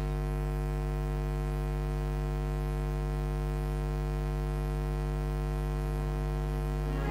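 Steady electrical mains hum: a low, even buzz with a stack of overtones and nothing else over it.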